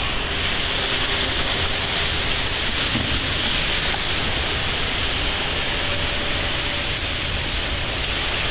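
Heavy rain driven by storm-force wind: a steady, loud, even hiss that does not let up.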